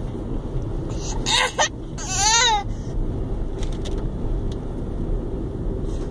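A young child shrieks twice, high-pitched: a short rising squeal about a second in, then a longer squeal with a fast-wavering pitch about two seconds in. A steady low rumble runs underneath.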